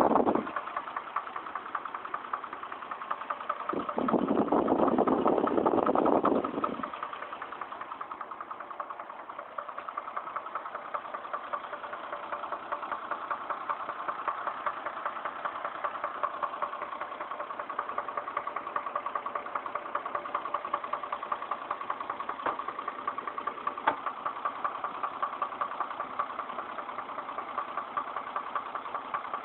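Chevrolet Trailblazer engine running with a steady, rapid knocking, the sound that comes with its trouble code P0014, an exhaust camshaft timing fault. A louder stretch of a couple of seconds comes about four seconds in.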